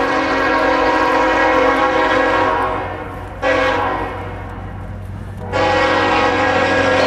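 Approaching diesel locomotive's multi-chime air horn blowing a chord: a long blast that fades out, a short blast, then another long blast. This is the long-short-long pattern of the grade-crossing signal.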